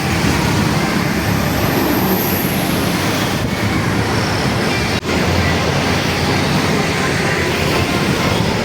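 Steady road traffic noise from passing vehicles, breaking off for an instant about five seconds in; no horn sounds.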